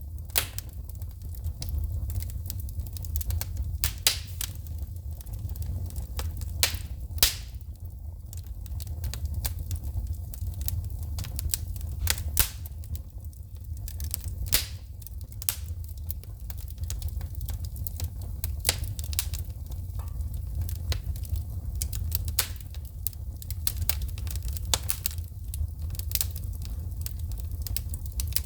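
Wood fire burning in a fireplace, crackling with irregular sharp pops and snaps as sparks shoot from the logs, over a steady low rumble.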